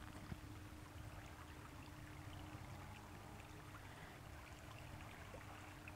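Near silence: the faint flow of river water, with a faint steady hum.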